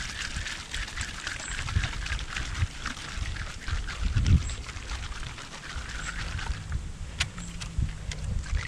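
Aerosol can of expanding foam being shaken, its contents sloshing with a fast, dense rattle that stops about six and a half seconds in.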